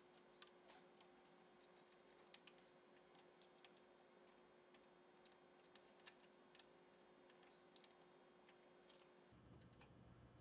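Near silence: faint room tone with a low hum and a scattering of faint small clicks.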